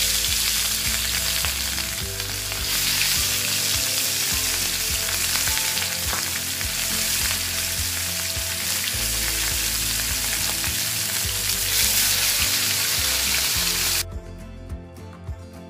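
Marinated fish pieces shallow-frying in hot oil in a pan, a loud steady sizzle that cuts off suddenly about a second and a half before the end. Soft background music runs underneath.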